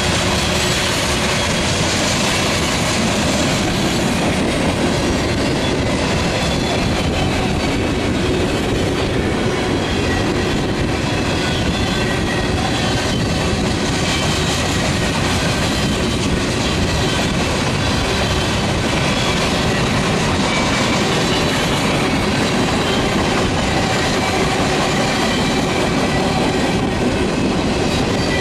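Freight cars of a long train (covered hoppers and tank cars) rolling past close by. The wheels make a steady clattering roll on the rail, with faint high squeals from the wheels now and then.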